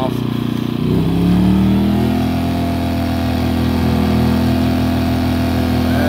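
A-iPower SUA2000i inverter generator's engine, its low idle (eco) mode just switched off, speeding up about a second in from low idle to a higher steady running speed. It runs pretty loud.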